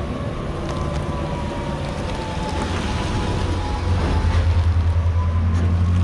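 Street traffic: a motor vehicle's engine with a low, pulsing hum that grows louder about four seconds in.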